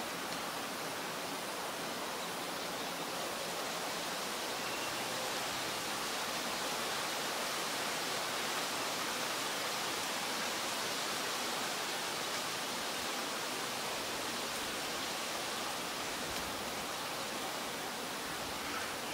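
Steady, even hiss of background noise, with no distinct bird calls or other events.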